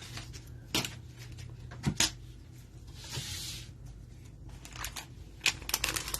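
Trading cards and pack wrappers being handled: a few sharp taps, a brief sliding rustle about three seconds in, and a quick run of light clicks near the end.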